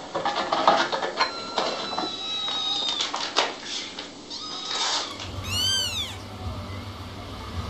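Kittens mewing in thin, high voices, mixed with short clicks. About five seconds in, one small kitten gives a single meow that rises and then falls.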